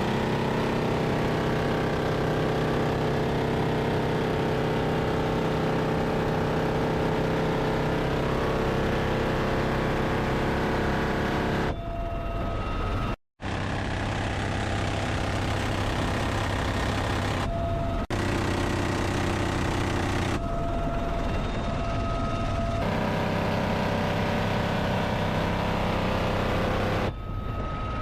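UH-1Y Venom helicopter's twin turbine engines and rotor running steadily, a loud, even drone. The sound changes abruptly several times and drops out briefly about 13 seconds in.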